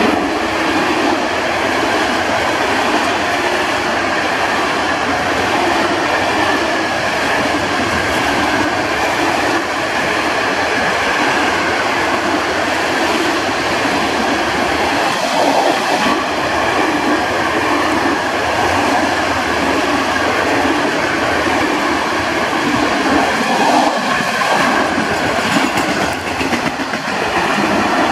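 Mixed freight train of open wagons and a hopper wagon rolling past close by: a loud, steady rumble and clatter of steel wheels on the rails.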